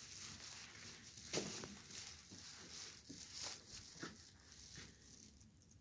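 Faint footsteps of a person walking slowly across a hard floor in a small room, about one step a second, dying away near the end.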